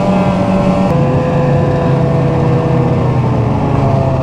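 Dual-sport motorcycle engine running while riding. About a second in the engine note drops suddenly, then sinks slowly and picks up a little near the end.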